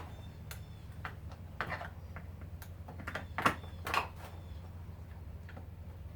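Scattered light clicks and metallic taps of hand tools and loose metal parts being handled while a garbage disposal is taken apart, the two loudest about three and a half and four seconds in, over a steady low hum.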